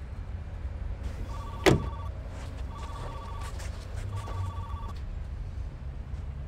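A phone ringing three times, each a trilling two-tone ring lasting under a second, about one every second and a half. A single sharp thump lands during the first ring, over a low steady rumble.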